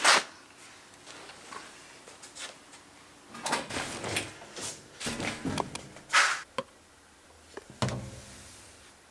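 Clothes being loaded into a washing machine: rustling cloth and a series of knocks and thuds from the machine and laundry basket, with a sharp knock at the start, a cluster in the middle and another near the end.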